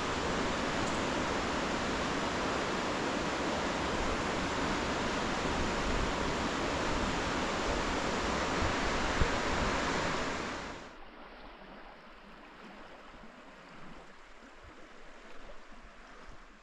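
Steady outdoor rushing noise that drops abruptly to a much quieter hiss about eleven seconds in.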